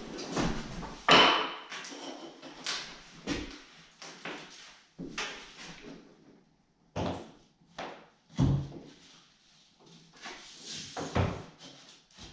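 Brad nailer shooting brads into pine trim: a string of short, sharp knocks about a second apart, the loudest about a second in.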